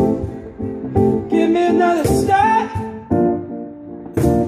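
A man singing a song live into a microphone, with guitar accompaniment.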